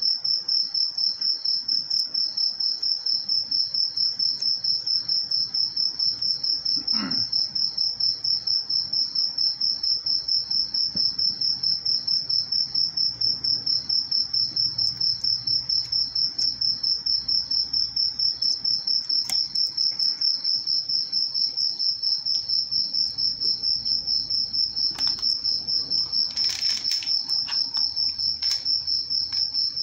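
A cricket chirping loudly and steadily in a fast, even pulse, with a few faint clicks and knocks near the end.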